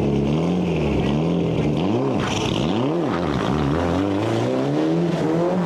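Toyota Celica GT-Four ST205 rally car's 2-litre turbocharged four-cylinder engine being revved, its pitch rising and falling in quick blips around the middle, then climbing again near the end.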